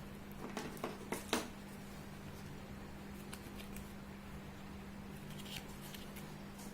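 A handful of light clicks and taps from small plastic toy pieces being handled, the loudest about a second in and fainter ones later, over a steady low hum.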